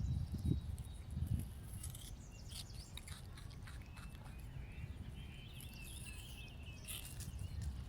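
Small birds chirping in quick wavering phrases, most busily near the end, over a low rumble with scattered sharp clicks.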